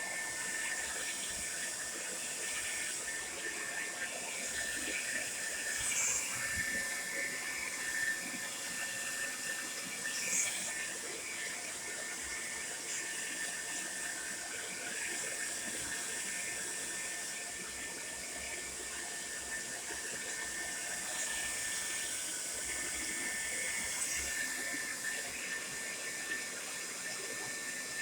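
Tresemme Salon Smooth hair dryer running steadily: a continuous rush of air with a thin, steady motor whine.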